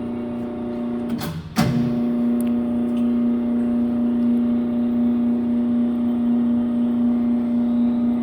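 Koike Aronson welding positioner's powered tilt drive running with a steady electric motor hum. About a second in, it cuts out briefly with a click and then starts again, a little louder.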